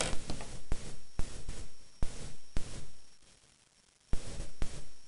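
Hair rustling under a hand smoothing it around the head, in swells of hiss broken by several sharp clicks. It fades almost away about three seconds in and starts again near the end.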